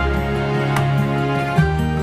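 Background music with sustained held notes over a low bass; the chord changes about one and a half seconds in.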